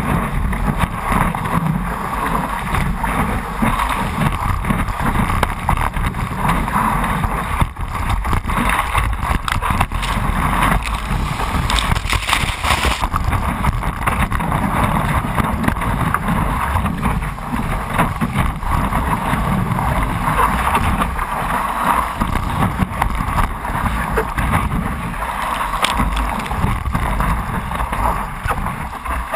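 Wind buffeting the microphone of a camera mounted on a stand-up paddleboard's deck, over the continuous rush and splash of water as the board rides a breaking wave.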